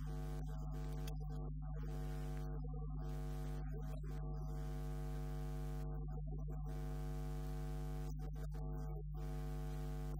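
Steady electrical mains hum: a constant low buzz with a stack of overtones and no change in level.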